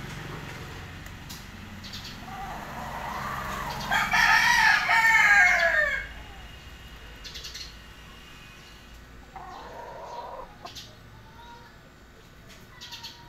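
Rooster crowing once, a long call that builds from about two and a half seconds in, is loudest in the middle and falls in pitch at its end. A shorter, quieter call follows about ten seconds in.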